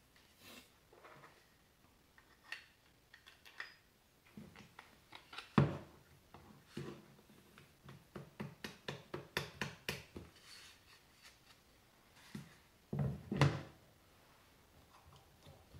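Wooden stop block parts being handled and fitted together by hand: scattered clicks, taps and knocks of wood on wood, with a run of quick clicks in the middle and two louder knocks, about six and thirteen seconds in.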